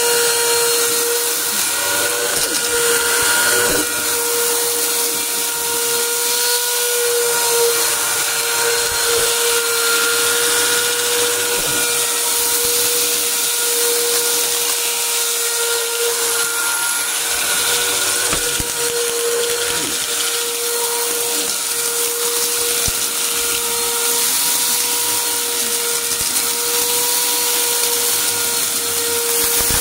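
Bissell PowerForce upright vacuum running steadily on carpet with a constant whine over its rushing airflow, with scattered crunches and crackles as grit and debris are sucked up.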